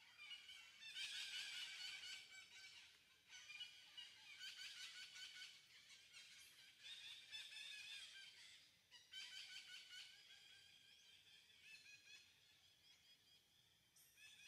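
Faint high-pitched animal calls chattering in repeated bouts of one to three seconds.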